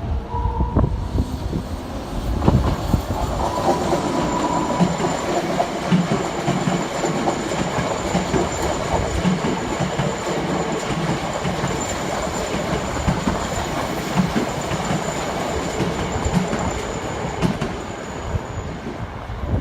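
Electric commuter train running past, its wheels clattering over the rail joints in a steady rhythm. A thin high-pitched squeal is held for most of the run.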